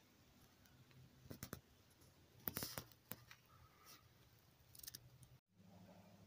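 Near silence broken by a few faint, short scrapes and clicks: a pair about a second in, a louder cluster near the middle, and another shortly before the end.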